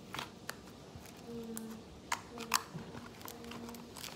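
Thick homemade slime being pulled and peeled out of a thin plastic cup: a few sharp sticky clicks and crinkles of the plastic, the two loudest about two seconds in, half a second apart.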